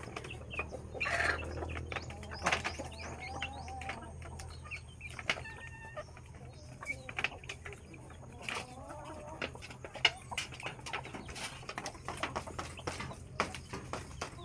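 Chickens clucking now and then, with many sharp clicks and taps scattered throughout.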